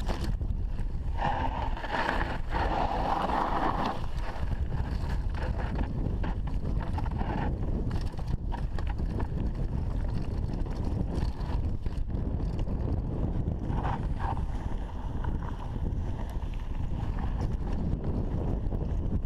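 Mountain bike descending a rocky dirt trail at speed: wind rushing over the camera microphone, with the bike rattling and knocking over stones and ruts.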